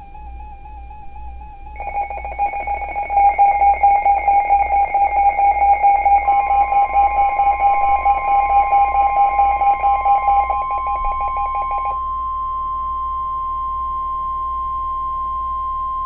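Emergency alert tones. A loud, rapidly pulsing electronic alarm beep is joined after about six seconds by the steady single high tone of the NOAA Weather Radio warning alarm. That tone runs on alone once the beeping stops and cuts off sharply at the end.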